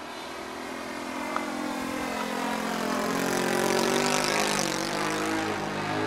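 Single-cylinder four-stroke glow engine (OS FS-120 Surpass III, freshly fitted with new bearings) of a radio-controlled Yak 54 model aeroplane running in flight, growing steadily louder as the plane approaches; its pitch dips slightly about five seconds in as it passes close by.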